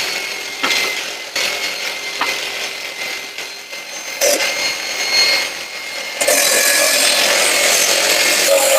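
A power woodworking tool working wood. There are quieter scrapes and knocks at first, then about six seconds in it runs loud and steady through the board.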